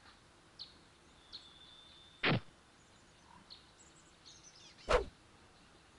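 Two quick downward-sweeping whooshes, about two and a half seconds apart; the second is louder and ends in a low thud. Faint, scattered bird chirps sound between them.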